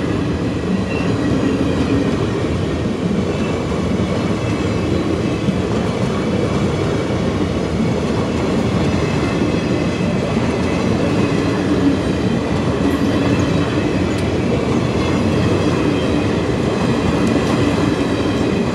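Indian Railways passenger coaches rolling past, a steady, loud rumble of steel wheels running on the rails.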